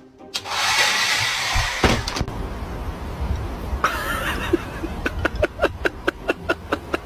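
Handheld hair dryer switched on and blowing steadily. In the second half a dog barks rapidly at it, about four or five barks a second.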